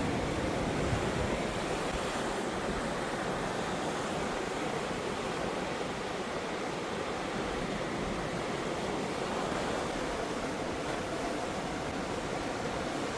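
Pacific Ocean surf: a steady rush of breaking waves.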